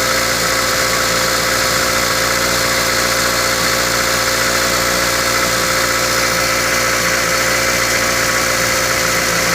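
Toyota Matrix engine idling, with a steady tone running over it throughout: the unexplained noise that a new starter motor did not cure. The dealer had put it down to the starter staying engaged after start-up.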